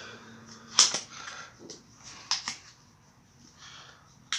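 Scattered clicks and rustles of a thin plastic seal tool, cut from a pop bottle, being handled and worked against a motorcycle fork tube and seal, with a sharp click about a second in and another near the end.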